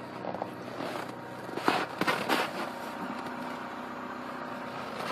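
Chevrolet Captiva 2.2-litre four-cylinder diesel idling evenly, warming up after a cold start in −18 °C frost, with no unusual noises. A few short noises come about two seconds in.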